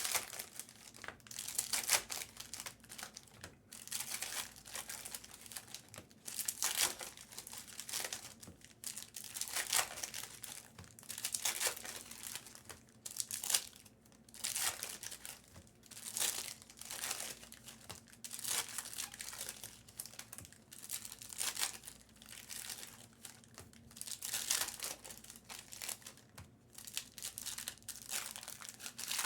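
Foil trading-card pack wrappers being torn open and crinkled by hand, in irregular bursts of rustling and crackling.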